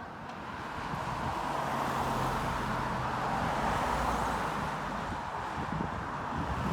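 A car driving past: engine and tyre noise that builds over the first couple of seconds and then holds, with a low steady engine hum through the middle.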